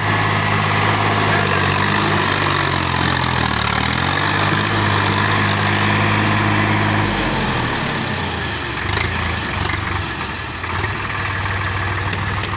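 Sonalika DI 50 RX tractor's diesel engine running hard as the stuck tractor tries to pull free. The revs hold high with a brief dip, then drop away about seven seconds in.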